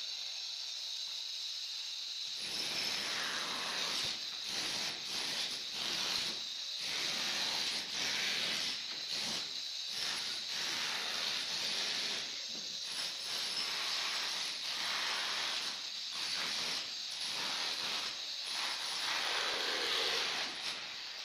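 Old ceramic tiles being broken off concrete stair steps by hand: irregular knocking and scraping, with broken pieces clattering, starting about two seconds in. A steady high hiss runs underneath.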